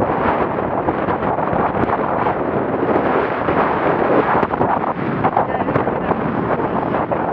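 Strong, gusty wind buffeting the microphone in a steady loud rush, over choppy, whitecapped water.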